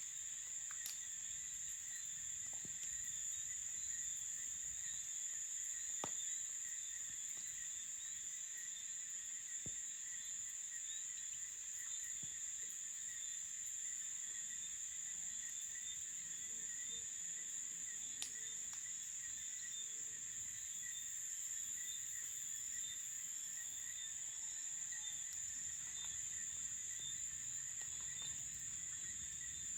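Night chorus of crickets trilling steadily at a high pitch, with a few faint clicks scattered through it.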